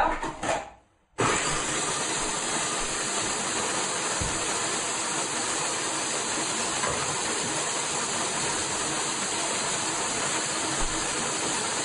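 Food processor motor switching on about a second in and running steadily, puréeing roasted squash with water.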